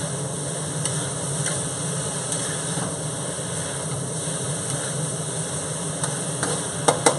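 Shredded potatoes sizzling in a wok over a high gas flame, with a steady drone and a few light scrapes of tongs. Near the end, a quick run of about five sharp metal clangs as a wok spatula is banged on the wok.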